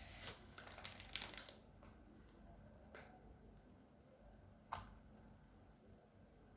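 Faint small clicks and rustling from hands working inside an open laptop: light crinkly clicking in the first second and a half, then near silence broken by a soft click about three seconds in and a sharper click a little before five seconds.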